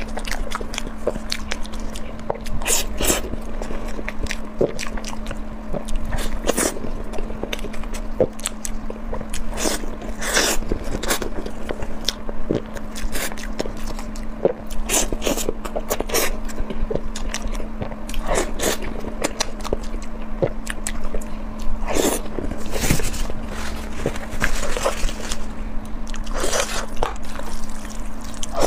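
Close-miked ASMR eating: repeated bites, crunches and chewing, with short crisp crackles every second or so over a faint steady hum.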